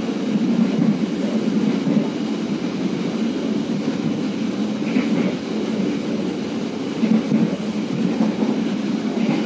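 Economy-class passenger coach of a moving train running along the rails, heard from inside the carriage as a steady low rumble.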